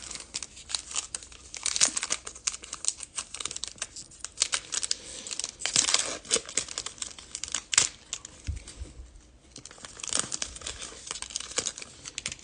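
Foil wrapper of a Panini Contenders football card pack crinkling and tearing as it is opened by hand: an irregular run of crackles that swell in several bursts.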